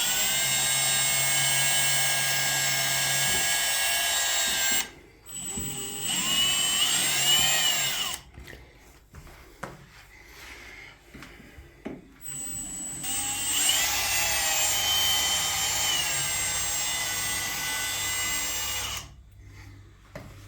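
Power drill-driver backing screws out of a fridge's hinge bracket, in three runs: a steady run of about five seconds, a shorter one whose pitch rises and falls, then another steady run of about six seconds, with small clicks and knocks between.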